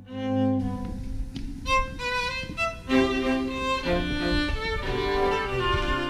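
Violin music: a bowed melody of changing notes over lower string accompaniment.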